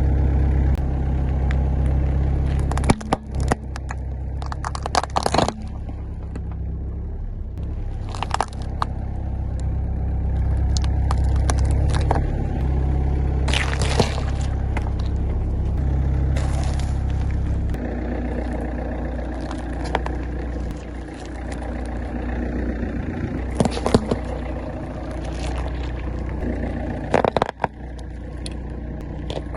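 Car engine running at low speed, with sharp cracks and crunches scattered throughout as the tyres roll over and crush objects.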